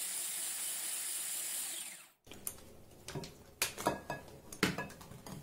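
Electric hand blender with a whisk attachment running steadily in runny batter in a glass bowl. It is switched off about two seconds in and winds down, followed by a few light knocks.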